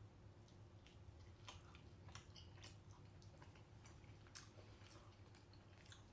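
Near silence with faint eating sounds: soft chewing and small scattered clicks over a low steady hum.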